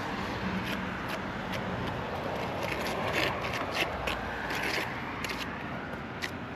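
Hand plastering work on a roughcast render repair: irregular scraping and short sharp clicks of tools and material, over a steady background hum.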